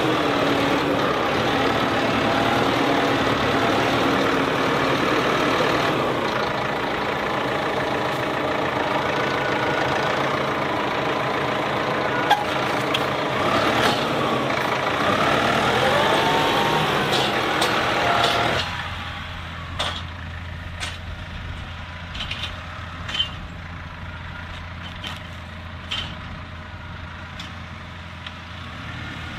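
Massey Ferguson 5712 S tractor engine running, its pitch rising and falling as the front loader lifts and stacks wrapped bales. About two-thirds through the sound drops suddenly to a quieter, steady low engine hum from further off, with scattered short clicks.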